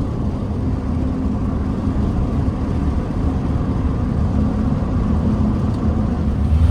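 A car's engine and road noise while driving: a steady low drone, a little louder near the end.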